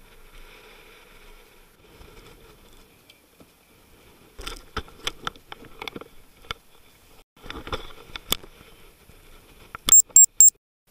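Faint hiss of wind and sea, then a run of knocks and rubbing as the camera is handled, ending with three short, sharp high beeps near the end: the camera signalling that it has stopped recording.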